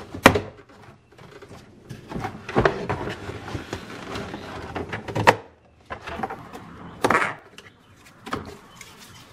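Hard plastic cargo storage bin of a Nissan Pathfinder being lifted out of the rear floor: a sharp click as it comes free of its clips, a few seconds of plastic scraping and rubbing, then a couple of knocks as it is handled.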